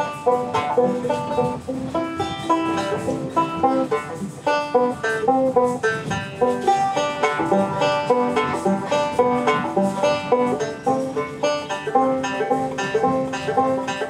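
Instrumental background music: a quick bluegrass-style tune of rapidly picked plucked-string notes.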